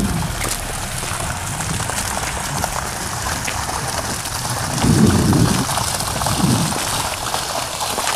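Water gushing steadily out of a pump's outlet pipe and splashing onto the ground, with a louder low rumble about five seconds in.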